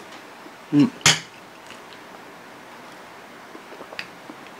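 Eating noises from a man eating kwek-kwek. About a second in there is a short hum, then a sharp loud mouth noise, and a faint click comes near the end.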